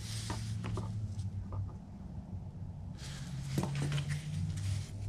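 Rustling and light clicks of a casting rod sleeve being handled and unpacked, loudest near the start and again in the last couple of seconds, over a steady low hum.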